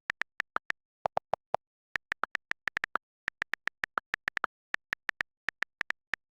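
A quick run of short electronic blips, mostly at one high pitch, with four lower blips about a second in, like a text-typing sound effect.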